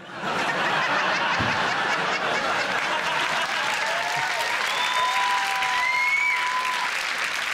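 Large theatre audience applauding steadily, with a few whoops and a held whistle-like call rising above the clapping near the middle.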